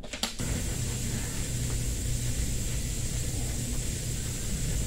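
Steady machine hum, low and even, with a faint high-pitched whine over it and no changes.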